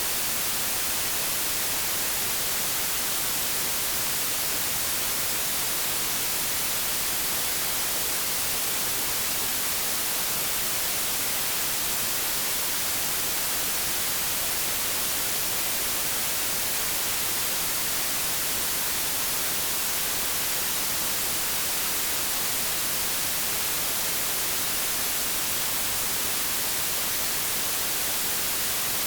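Steady white-noise static, an even hiss with most of its energy in the high frequencies and no change in level.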